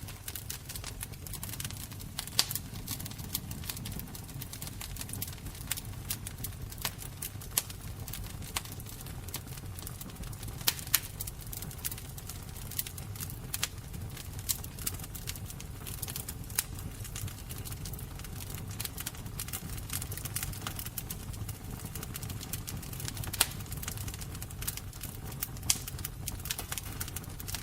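Fire crackling: irregular sharp pops and snaps, a few much louder than the rest, over a low steady rumble of the flames.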